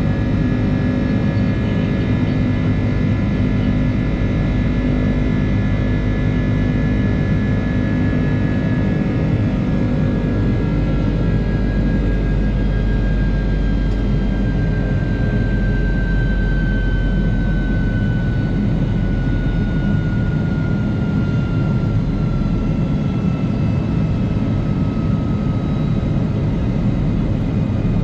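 Airbus A330 jet engines heard from inside the cabin: a steady, loud rush with a deep rumble and a whine that slides slowly lower in pitch through the second half.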